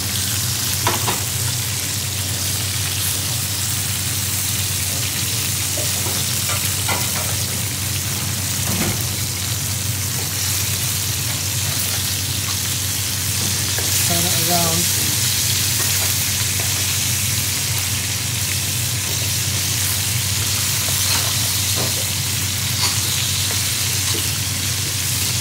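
Chicken pieces sizzling as they shallow-fry in oil in a non-stick frying pan, with a metal spoon now and then clicking and scraping against the pan as the pieces are turned. A steady low hum runs underneath.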